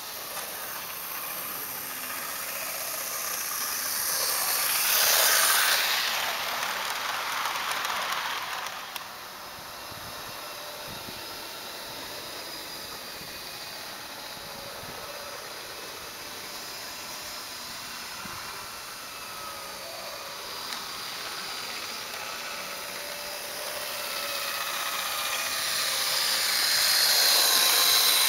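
HO-scale model diesel locomotives running on sectional track: a steady electric-motor whine with wheel and rail noise, swelling as a train passes close by about five seconds in and again near the end.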